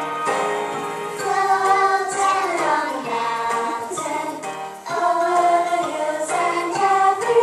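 A group of young children singing a Christmas song together with instrumental accompaniment.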